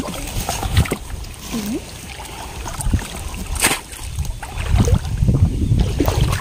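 Water sloshing and splashing in a shallow muddy stream, with wind rumbling on the microphone and a few sharp knocks, the loudest a little past halfway.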